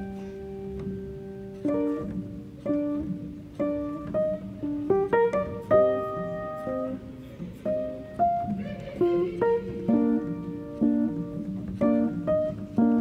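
Background music: a melody of plucked guitar notes, each ringing and fading.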